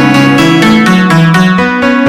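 Analog synthesizer playing a sequenced line of notes that step up and down in the bass register, each note rich in overtones, over a quick, even run of percussive ticks.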